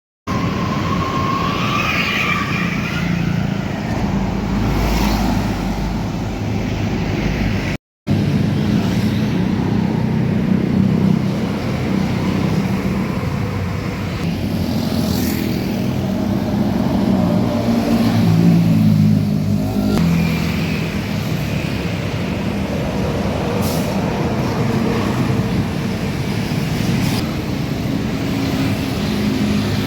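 Roadside traffic: engines of buses and other heavy vehicles running past in a steady rumble, cutting out briefly about eight seconds in.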